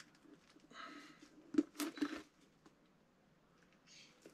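Faint handling sounds: a few light clicks and taps, bunched about one and a half to two seconds in, as a tungsten boot stud is fitted onto a cordless screwdriver's bit and set against the boot sole. The screwdriver motor is not running.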